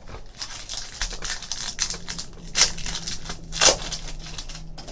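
Foil trading-card pack wrappers crinkling and tearing as packs are ripped open by hand, with two louder rips about two and a half and three and a half seconds in.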